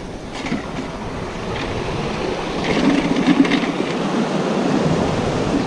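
Sea surf washing against rocks, with wind on the microphone: a steady rushing noise that builds slightly, with a few faint clicks around the middle.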